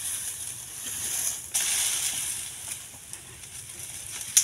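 Rustling, crunching noise of plant litter being disturbed, louder for about a second from a second and a half in, with one sharp click near the end.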